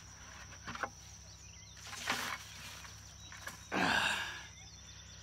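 Handling noises from unhooking a freshly caught bass with pliers: a couple of faint clicks, then two short rustling, brushing noises, the louder one about four seconds in.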